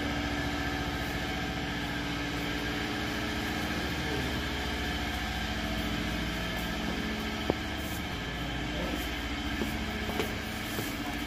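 Coffee-paper production machine running with a steady hum made of several constant tones, and a single sharp click about seven and a half seconds in.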